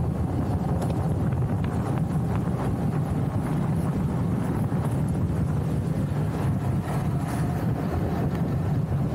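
Steady rush of wind over the microphone mixed with the rumble of street luge wheels rolling on asphalt at speed, with a few faint ticks.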